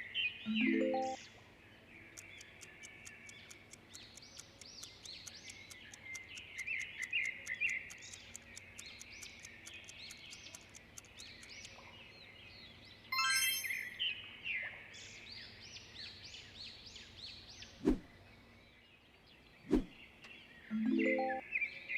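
Small birds chirping and twittering continuously, with a faint rapid ticking. A few sharp clicks come late on, and a short rising tone sounds near the start and again near the end.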